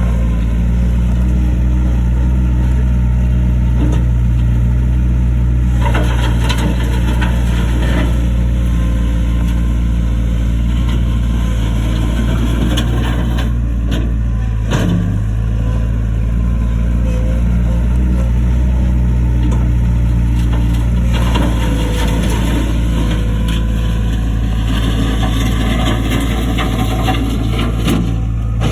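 Skid steer loader's engine running steadily under work, with a few sharp knocks.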